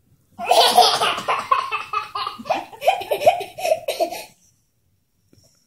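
Toddler girl laughing hard in a long run of loud, high, quickly repeating bursts, starting about half a second in and stopping about four seconds later.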